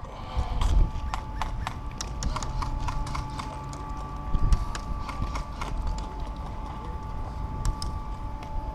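Irregular sharp clicks and snaps of airsoft gunfire and BBs striking, coming thick for about six seconds and then thinning out, over a faint steady whine.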